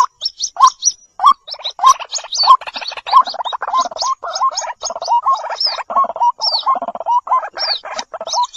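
White-breasted waterhens calling: a rapid, continuous string of short pulsed call notes, many ending in an upward hook, overlapped by quick high-pitched chirps.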